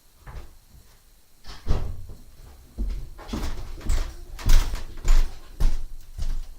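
A series of irregular knocks and clunks of things being moved or handled, sparse at first and then more frequent from about halfway through, the loudest about four and a half seconds in.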